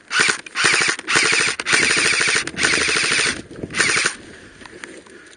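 Airsoft electric rifle firing on full auto: about six quick bursts of rapid buzzing clatter, one after another, over the first four seconds.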